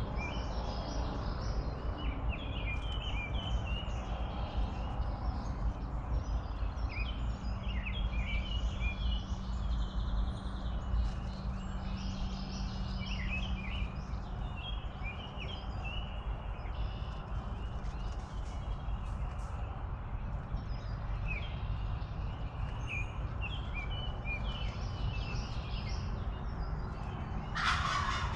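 Wild turkey tom gobbling, over many short songbird chirps. A brief, louder call sounds near the end.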